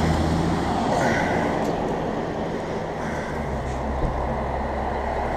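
Steady low hum of a running engine, its lowest note dropping a little about three seconds in.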